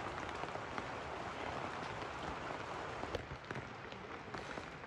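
Steady rain falling, a constant hiss with many small drop ticks; it gets a little quieter about three seconds in.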